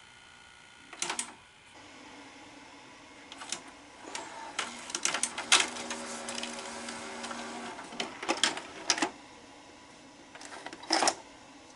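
Sony SL-S600 Betamax VCR's cassette mechanism working: a few sharp clicks, then a stretch of clattering clicks over a steady motor whir, and a last cluster of clicks near the end.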